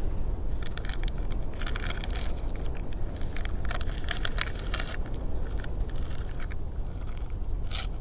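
Heavy wind rumbling on the microphone, with irregular clusters of light clicks and crackles over it.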